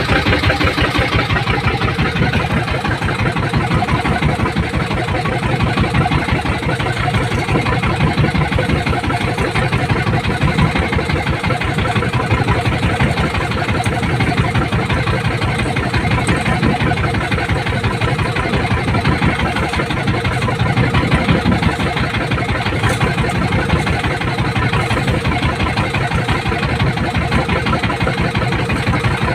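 Small boat engine running steadily, its fast even firing pulses unbroken throughout.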